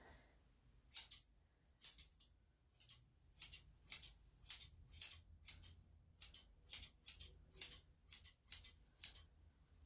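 Grooming scissors snipping a puppy's coat during touch-up trimming: short, crisp cuts about two a second, some in quick pairs.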